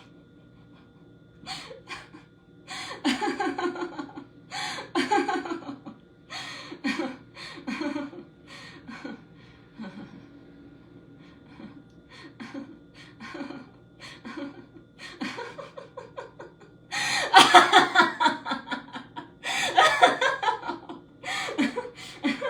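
A person laughing in repeated short bursts. The longest and loudest run of laughter comes about seventeen seconds in.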